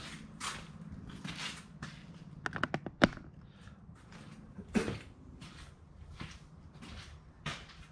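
Footsteps and handling knocks as a person moves about a workshop, with a quick rattle and then a sharp knock about three seconds in, the loudest sound.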